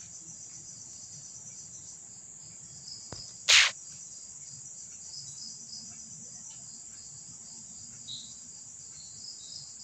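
Crickets chirping steadily in the background, a continuous high-pitched pulsing trill. A brief loud noise cuts in about three and a half seconds in.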